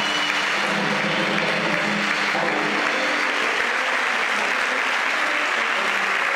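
Audience applauding steadily in an auditorium as a band's piece comes to an end.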